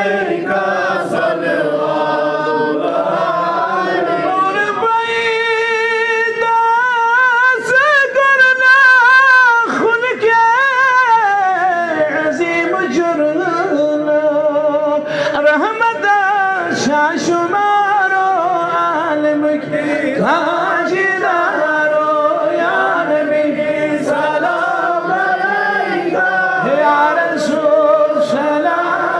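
A man chanting an Islamic devotional Salaam unaccompanied, in long, drawn-out melodic phrases with wavering, ornamented notes.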